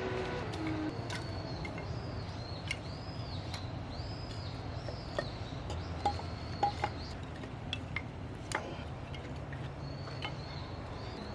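A small bird calling over and over with short high arched whistled notes. Scattered sharp clicks and a low steady rumble run underneath.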